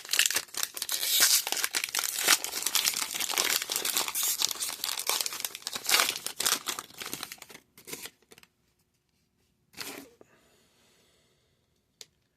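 Foil trading card pack wrapper being torn open and crinkled by hand, a dense run of tearing and crackling for about seven seconds that then stops, with one more brief rustle later.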